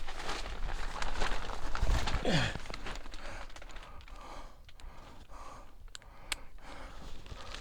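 Rustling, scraping and shuffling from someone working on their back in a cramped crawl space, with heavy breathing and a short falling groan about two seconds in.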